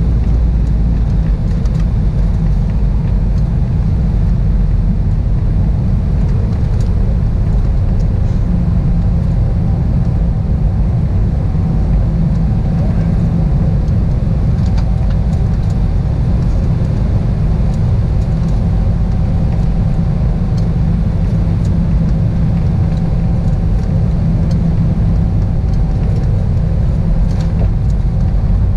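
Airbus A320-211 cabin noise on descent: a loud, steady roar of airflow and the CFM56 engines, heaviest in a deep low rumble, with a faint steady hum over it.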